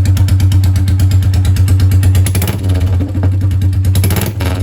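Royal Enfield Bullet 350's 349 cc J-series single-cylinder engine running through a bare free-flow bend pipe with no silencer: a very loud open-exhaust thump with evenly spaced firing pulses. About two seconds in the rhythm turns uneven, with a short louder burst about four seconds in.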